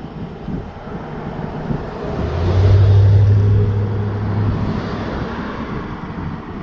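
A car overtaking from behind: its engine and tyre noise swell to a close pass about three seconds in, then fade as it drives on.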